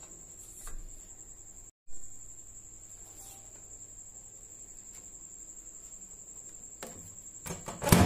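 Microwave convection oven: a baking tin knocks onto the wire rack inside, and just before the end the oven door shuts with a loud clunk. A steady faint high-pitched tone sounds throughout.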